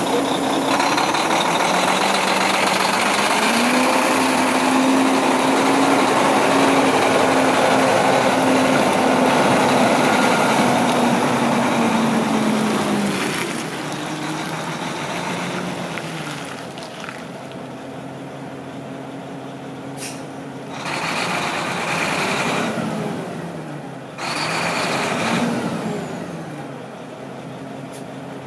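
Diesel engine of a 2012 Mack CXU613 tandem-axle day cab tractor, running loud and revving up a few seconds in. After about 13 s it is quieter, its pitch rising and falling as the truck moves off slowly. Short air-brake hisses come twice in the second half.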